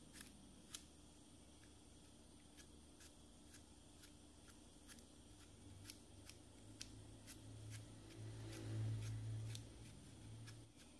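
Kitchen knife paring the skin off a whole apple: faint crisp snicks, about two a second, as the blade cuts through the peel. A low rumble swells up and fades away near the end.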